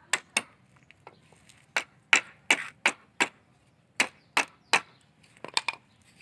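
About a dozen sharp blows of metal on a nail in a wooden stick, coming in uneven groups of two to four. The nail is being hammered over and bent flat to clinch the joint of a wooden scarecrow frame.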